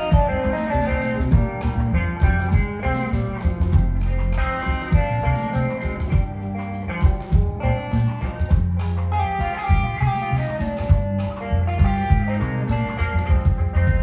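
Live band playing amplified, without vocals: an electric guitar lead over bass guitar and drum kit.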